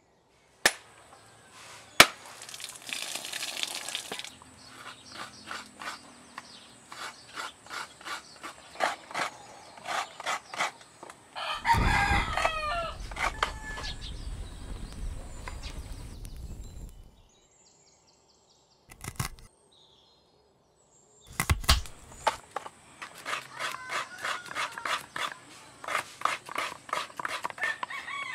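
Sharp knife strikes, then runs of quick chopping knocks from a cleaver on a wooden chopping block. About twelve seconds in, a rooster crows over a low rushing sound that lasts a few seconds.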